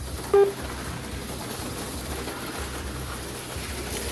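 Steady whir of HO slot cars running laps, with one short electronic beep from the race's lap-counting system about a third of a second in.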